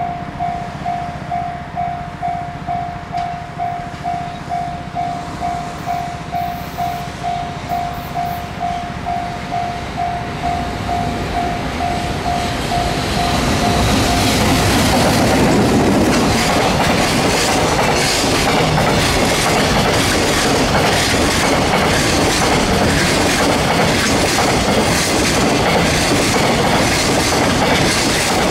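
A level-crossing warning bell rings, an electronic tone pulsing about twice a second. Then, from about halfway through, an EF210 electric locomotive hauling a container freight train passes close by, loud and steady, its wheels clacking over the rail joints, and the train noise drowns out the bell.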